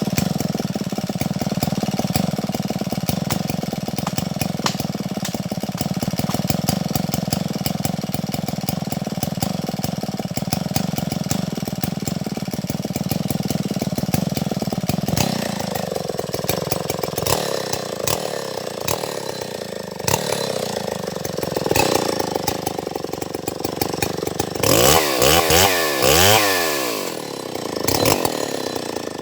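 Stihl MS070 chainsaw, a large two-stroke, running steadily at high revs while cutting into a durian trunk. About halfway the engine note drops to a lower steady pitch, and near the end the saw is revved up and down several times.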